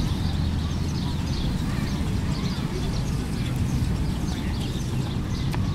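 A steady low rumble with small birds chirping faintly and repeatedly over it.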